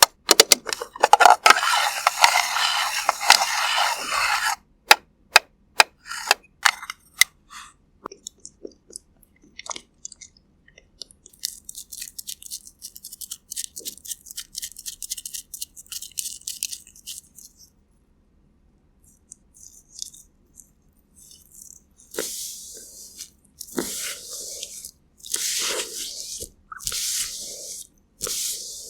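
Close-miked ASMR sounds of makeup being worked on a mannequin head: a dense crinkling rustle in the first few seconds, then scattered sharp taps and clicks, a stretch of fine scratching, and near the end a series of sweeping brush-like strokes.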